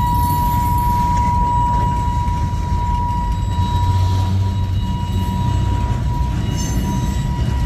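Freight train boxcars rolling past: a steady low rumble of wheels on the rails, with a thin, steady high tone running through it.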